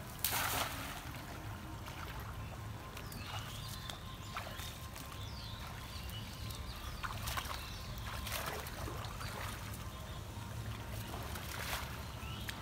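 A cast net splashing down onto shallow water just after the start, followed by intermittent splashing and sloshing as the net is gathered in by hand and the fisherman wades through the water.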